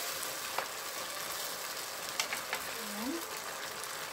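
Adobo sauce with potatoes and quail eggs simmering in a nonstick wok, a steady sizzling hiss, while a utensil stirs through it with a few light clicks against the pan.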